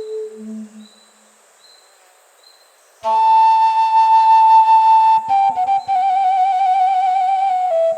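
Romanian caval, a long end-blown shepherd's flute, playing a slow doina lament. A low note dies away at the start and there is a pause of about two seconds. Then a high note enters sharply and is held, followed by quick ornaments, a wavering note, and a step down to a lower note near the end.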